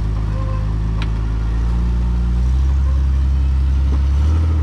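Off-road vehicle engine running steadily at low revs, a deep hum that swells a little about two seconds in, with a single short click about a second in.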